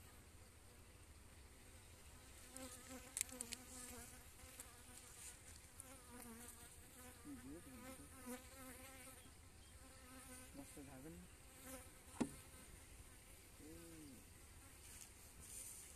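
Faint buzzing of honeybees around an opened hive box. Bees fly close past, their hum wavering and sliding up and down in pitch. Two sharp clicks cut in, a few seconds in and again about three quarters of the way through.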